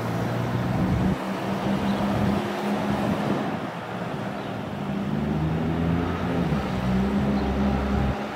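A motor engine running steadily, a low hum whose pitch shifts a little, over a rushing background noise.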